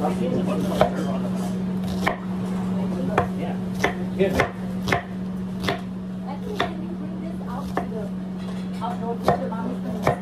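Knife chopping food on a cutting board in irregular strokes, roughly one a second, over a steady low hum.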